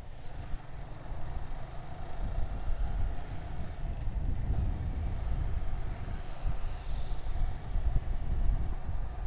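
Riding noise on a moving motorcycle: wind buffeting the microphone over steady engine and road noise.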